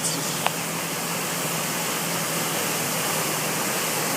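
Waterfall pouring down a mountainside, a steady rushing noise, with one brief click about half a second in.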